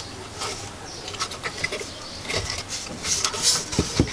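Handling noise from a small wooden and aluminium speaker box being turned over in the hands and set down on the desk: scattered rubbing and scraping, with a few light knocks near the end as it is put down.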